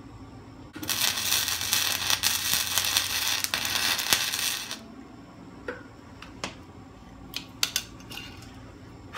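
Wire-feed welder arc crackling steadily for about four seconds, starting just under a second in, as a hex nut is fill-welded onto a stripped Torx bolt head. After the arc stops, a few sharp clicks follow.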